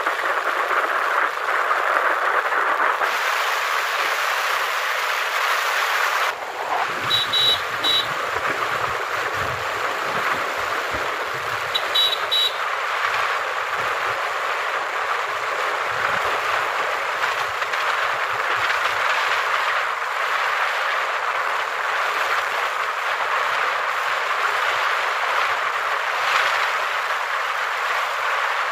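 Steady rushing wind and road noise from a vehicle driving along a road at speed, with a few short high beeps in two quick clusters partway through.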